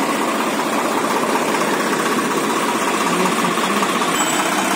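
Swaraj 855 FE tractor's three-cylinder diesel engine idling steadily with a fast, even clatter.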